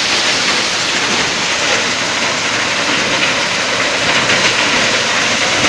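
Sonalika maize thresher (sheller) running under load as cobs are fed up its conveyor: a steady, loud mechanical rattle and hum with no pauses.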